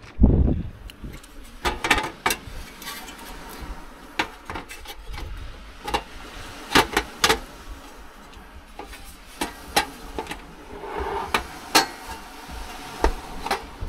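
A series of irregular sharp knocks and clatters, about fifteen, unevenly spaced, with a heavy low thump right at the start.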